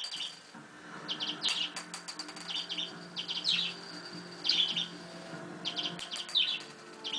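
Budgerigar chirping in a series of short, quick chirp bursts, about one a second.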